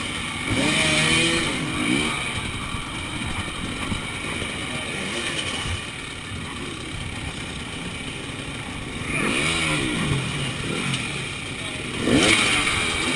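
KTM enduro motorcycle engine running at low speed and blipped in short revs that rise and fall, three times: about a second in, around the middle of the last third, and near the end, as the bike is worked over a tyre-and-log obstacle.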